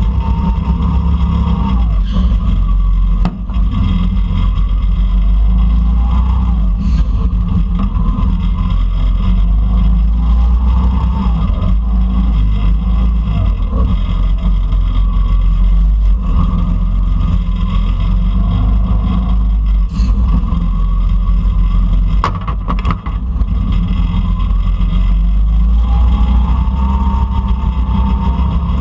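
Go-kart engine heard from an onboard camera on the kart, a loud, steady low rumble whose pitch rises and falls as the kart laps. A few sharp knocks, two of them close together about three-quarters of the way through.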